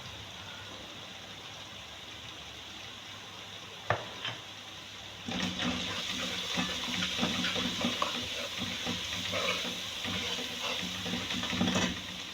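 Ghee sizzling in a karahi with a knock of metal about four seconds in. From about five seconds in, a louder, crackling sizzle runs until near the end.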